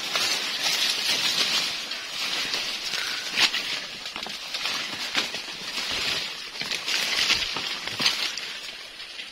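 Leaves and branches rustling and swishing against clothes and backpacks as people push on foot through dense forest undergrowth. Twigs snap now and then, one sharp snap about three and a half seconds in.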